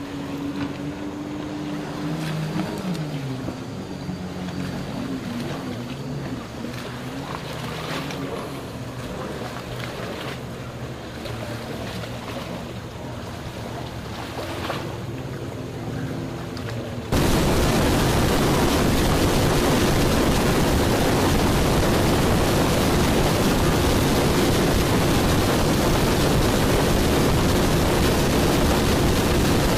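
A boat engine drones steadily over the water, its pitch shifting briefly near the start. About seventeen seconds in, the sound cuts abruptly to a louder, steady rushing noise that lasts to the end.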